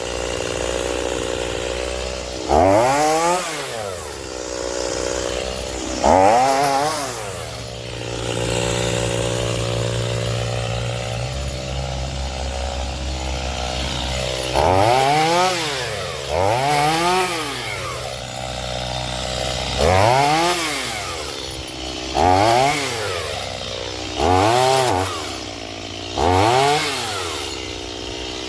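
Stihl MS210 two-stroke chainsaw running between repeated short blips of throttle: about eight quick revs, each rising and falling in pitch over about a second, as it cuts small branches.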